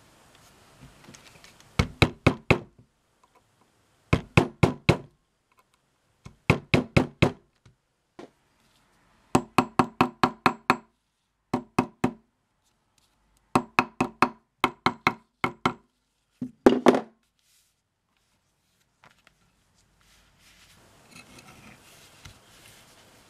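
Hammer striking a metal punch and eyelet setter through leather on a hard stone slab, in about eight quick runs of four to eight sharp blows with pauses between. Faint scraping of a scribing tool across leather near the end.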